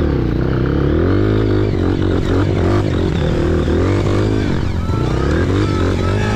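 Honda CRF trail bike's single-cylinder four-stroke engine running under way, its revs rising and falling continuously as it picks through rough ground.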